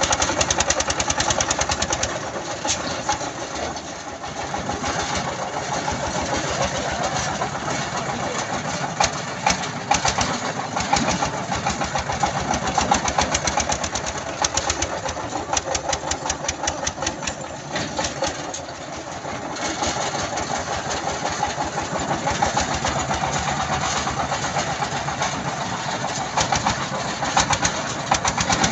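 Mini tractor's engine running with a rapid, even knocking beat, its loudness dipping and rising as the tractor works over the sand piles towing a trailer.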